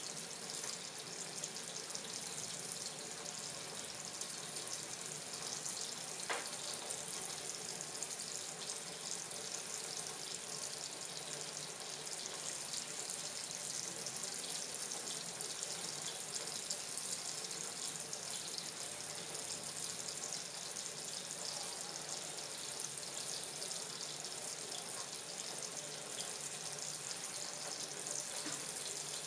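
Water running from a kitchen tap into a stainless steel sink, a steady splashing hiss, with a faint click about six seconds in.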